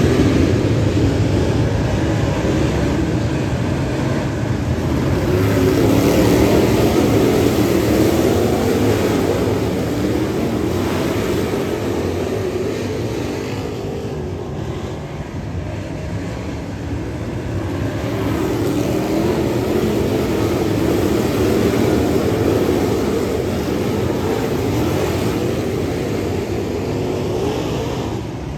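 Dirt late model race car engines running hard on a dirt oval, the sound swelling and fading over several seconds as the cars go around.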